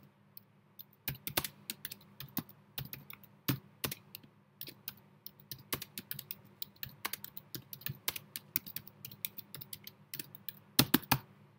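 Typing on a computer keyboard: irregular runs of key clicks, with a few louder strokes near the end, over a faint steady low hum.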